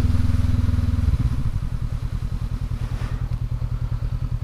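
2019 Honda CB500X's parallel-twin engine running at low road speed, then dropping to an even, pulsing idle about a second in as the bike comes to a stop.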